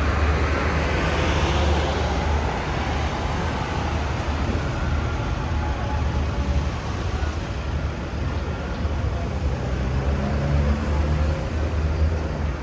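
Busy road traffic: cars passing on a multi-lane road with a steady low rumble, one vehicle going by close near the start.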